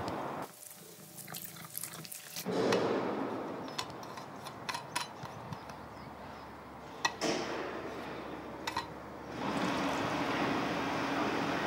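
Liquid poured from a bottle into a small cup, a steady stream in the last couple of seconds. A few sharp clicks come before it.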